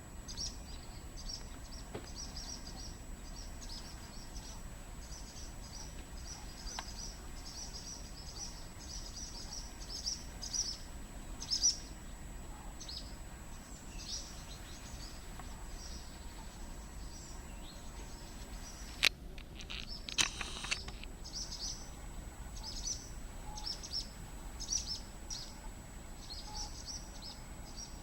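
Songbirds chirping continually in the background, and a little past two-thirds of the way in a male common pheasant (ring-necked pheasant) gives its loud, harsh crowing call, followed by a brief whirr of its wing-beats.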